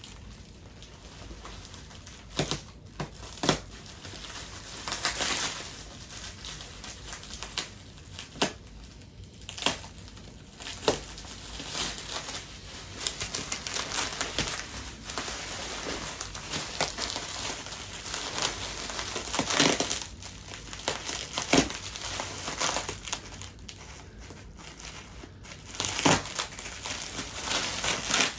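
Bubble wrap being unwrapped and handled: continuous crinkling and rustling of plastic packing, with sharp crackles every few seconds.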